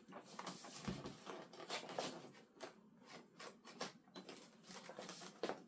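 Irregular light clicks and scrapes of hands working the plastic tail section of a model jet, fitting the parts and threading their mounting screws.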